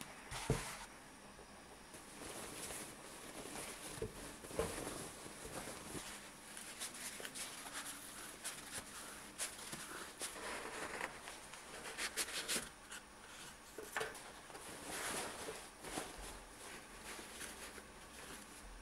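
Crinkling and rustling of a thin white wrapping bag and a toilet paper roll being handled and pushed into the bag, with a few light knocks.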